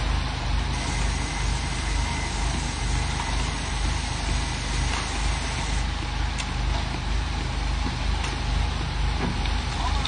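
Self-loading concrete mixer's diesel engine running at a steady speed: a constant low rumble under general mechanical noise.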